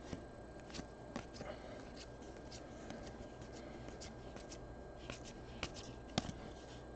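Faint, scattered soft clicks and slides of a stack of football trading cards being flicked through by hand, one card at a time.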